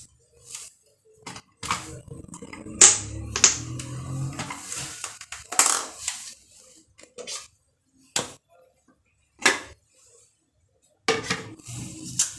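Knocks and clatter of a plastic electric blender being set down and put together on a tiled countertop: the motor base, then the clear plastic jug. The knocks are sharp and separate, with short quiet gaps between them.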